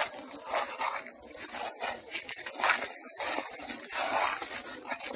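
Footsteps crunching through dry fallen leaves on a forest path, a rustling crunch with each step.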